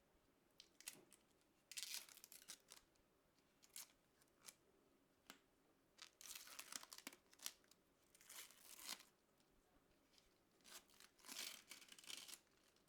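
Plastic film or packaging being peeled and crinkled in several short bouts, with small single clicks between them.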